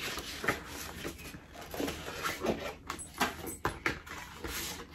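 Paper and cardboard packaging being handled, with irregular rustling, light scrapes and soft taps as sheets and a box are moved about.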